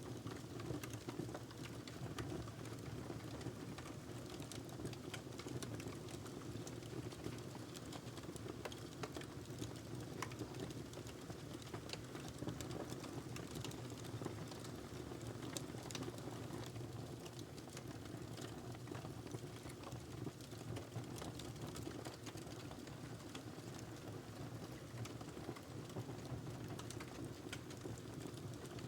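Logs burning in a fireplace: wood crackling with many small, sharp, irregular pops over a steady low rush of flame.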